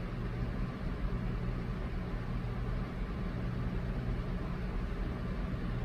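Steady low hum with an even hiss behind it: room background noise, unchanging throughout.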